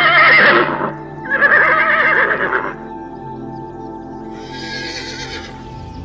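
Horse whinnying: two loud, quavering neighs in the first three seconds, then a fainter, higher call about four seconds in, over steady background music.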